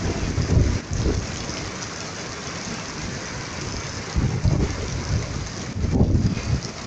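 Heavy rain pouring down in a storm with strong wind, a steady hiss of rain with low rumbling gusts buffeting the microphone near the start, about four seconds in and again near the end.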